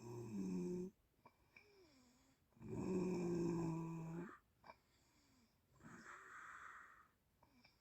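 A sleeping person snoring: the end of one snore, then a loud pitched snore about three seconds in lasting under two seconds, followed by a softer breathy exhale.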